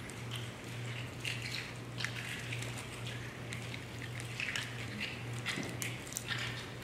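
Steady low hum with scattered faint clicks and rustles, from the communion bread and plate being handled at the table.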